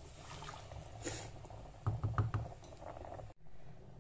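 Spiced water with beef trotters in a steel pot, beginning to bubble as it comes up to the boil, with a few soft knocks just under halfway through.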